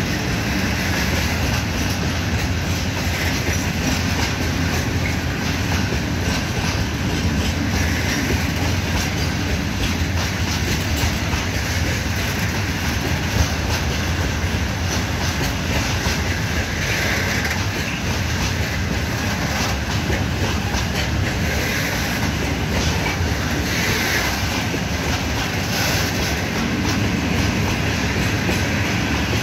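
Rake of open freight coal wagons rolling past on the track: a steady rumble and clatter of steel wheels on rail, with brief higher-pitched wheel squeals a few times.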